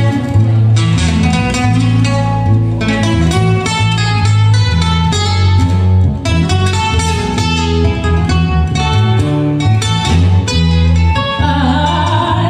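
Music: a plucked acoustic guitar piece with a flamenco feel over a steady bass line.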